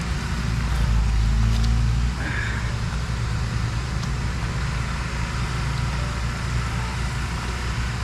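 A steady low engine hum, like an idling motor vehicle, swelling a little about a second in.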